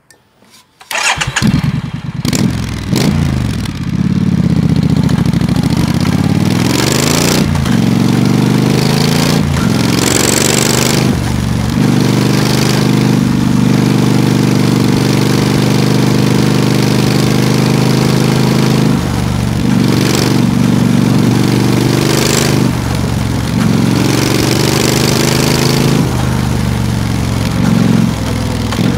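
Triumph Street Scrambler's 900 cc parallel-twin engine starting about a second in, then pulling away and riding on. The engine note rises and breaks off again and again as the bike shifts up through the gears and comes on and off the throttle.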